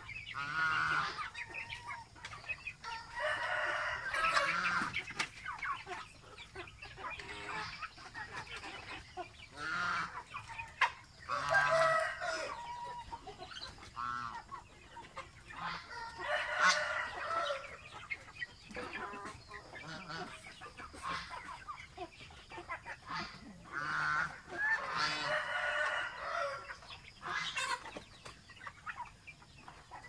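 Domestic fowl calling: repeated pitched calls, some a second or two long, coming every few seconds.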